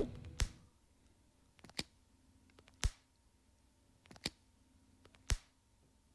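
AirPods charging case lid flipped open and snapped shut over and over: a sharp click about every second and a quarter, some doubled as a small click then a louder snap.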